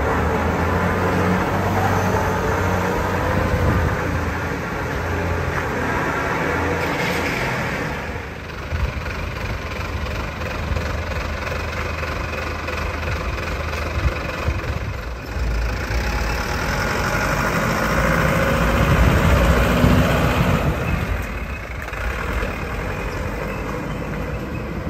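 Diesel engines running: first a compact wheel loader's engine with a steady low hum, then, after a change about eight seconds in, a small dump truck's engine, which grows louder for a few seconds as the truck pulls away.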